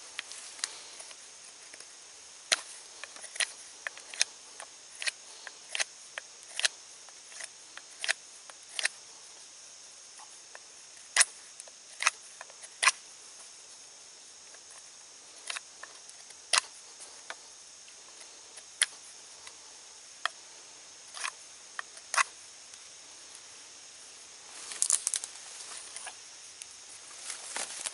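A knife blade cutting knots off a green wooden shaft: irregular sharp clicks, about two dozen, as the edge snaps through the wood, with a brief run of quicker scraping clicks near the end.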